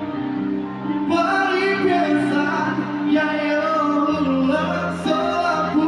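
Live Javanese dangdut song played by a band over a stage sound system, with sustained instrument chords and singing coming in about a second in.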